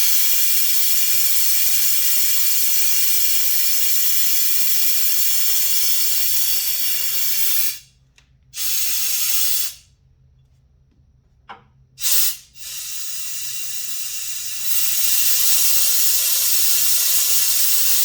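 Compressed air hissing loudly as it is blown into a jet ski's fuel tank to force the old fuel out through a drain hose: one long blast of about eight seconds, a shorter one, two quick puffs, then another long blast that gets louder partway through. The fuel is not yet coming out.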